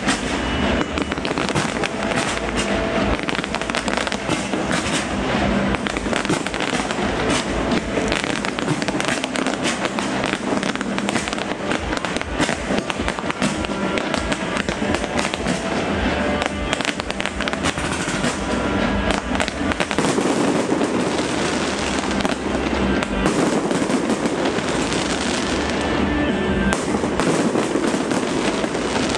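Fireworks display going off continuously, a dense stream of bangs and crackles packed closely together.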